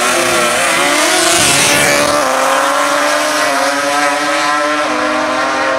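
Drag-racing engine running hard at high revs, its pitch stepping down twice, about two seconds in and again near five seconds.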